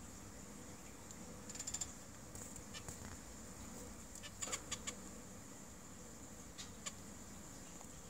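Small cage finches giving short, faint chirping calls: a quick run of chirps just under two seconds in, a few single chirps, a cluster of four or five around the middle, and two more near the end.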